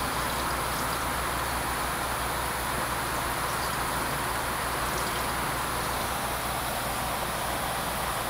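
Steady hiss and low hum of an aquarium's pump and circulating water.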